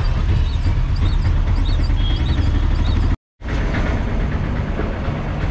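Autorickshaw engine running with road noise, heard from inside the moving auto. A steady low rumble that cuts out for a split second about three seconds in, then resumes.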